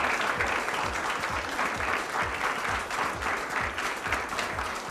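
Audience applauding: dense, steady clapping from a roomful of people that eases off slightly toward the end.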